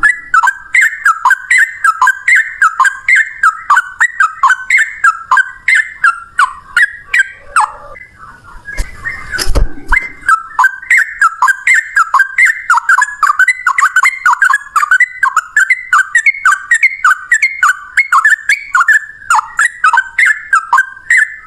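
Sooty-headed bulbuls (trucukan) in a long rapid song duel: a fast run of loud, falling whistled notes, about three a second. The run breaks off briefly about eight seconds in, with a low thump, then carries on.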